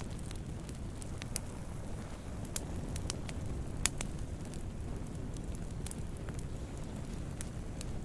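Wood campfire burning: a steady low rumble with scattered sharp crackles and pops, the loudest just under four seconds in.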